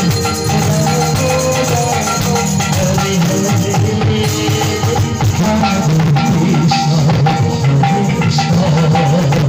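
Live devotional kirtan music: a hand drum keeps up a rhythm with jangling hand cymbals, over an electronic keyboard melody.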